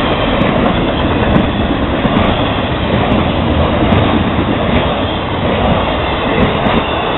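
Florida East Coast Railway freight cars rolling past at close range: a steady loud rumble of steel wheels on rail with a repeating clickety-clack.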